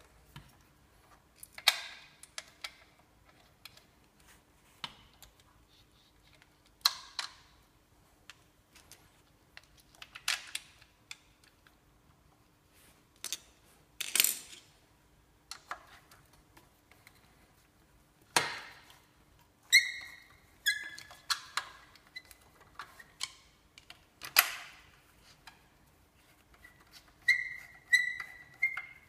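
Scattered clinks and knocks of hand tools and bolts against an aluminium motorcycle footpeg bracket as it is refitted. Several in the second half ring briefly with a high metallic tone.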